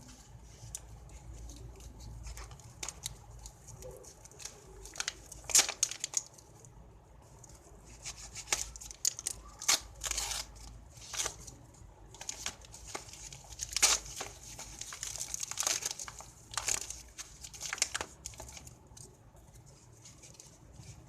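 Packaging being handled and opened: irregular crinkling and tearing of plastic or paper wrapping, with several louder rips through the middle.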